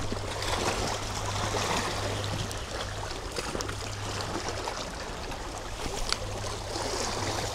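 Light rain falling at the water's edge: a steady hiss of water with a few faint ticks of drops.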